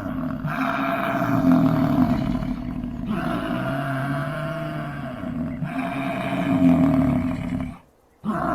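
Bison bellowing: deep, drawn-out calls, one after another every two to three seconds, broken by a short near-silent gap near the end.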